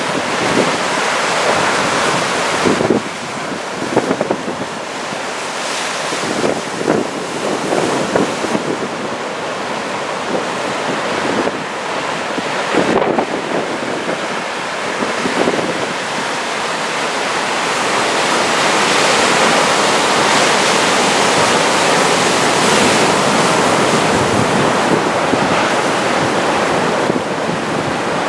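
Wind buffeting the microphone over the steady rush of heavy ocean surf, a big swell raised by an approaching typhoon. The gusts come and go through the first half, then the rush grows steadier and louder about two-thirds of the way in.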